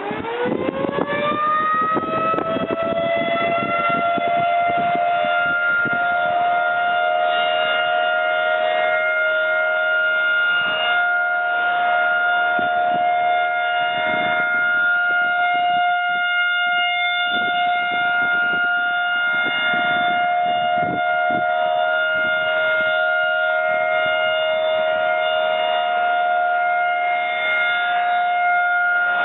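Model 2001 electromechanical outdoor warning siren winding up, its pitch rising over about two seconds, then holding one steady, loud, high tone: the steady alert signal.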